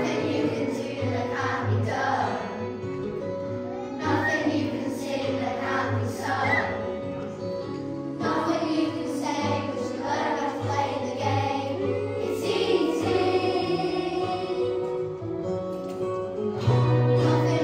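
A group of children singing a song together over instrumental accompaniment with a steady bass line.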